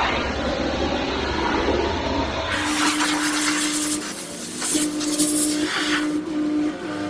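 Self-service car-wash high-pressure washer jetting water onto a mud-caked e-bike: a loud steady hiss of spray. About two and a half seconds in, the spray turns sharper and a steady hum comes in, breaking off briefly several times.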